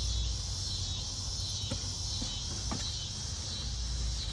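Steady chorus of cicadas, an even high buzz, over a low rumble, with a few faint knocks in the middle.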